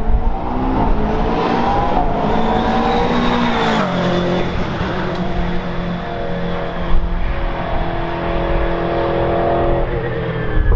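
McLaren 720S GT3 Evo's twin-turbo V8 race engine at full throttle as the car drives past. The pitch climbs for about four seconds, falls sharply, then holds a steady note as the car heads away into the corner.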